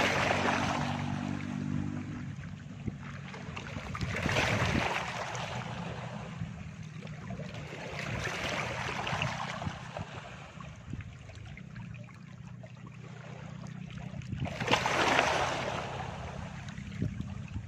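Gentle waves breaking and washing up on a beach, swelling and fading four times, with a steady low hum underneath.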